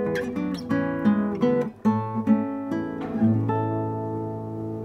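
Classical guitar being played solo: a run of plucked notes with a brief break just before two seconds in, then a chord left to ring and slowly fade.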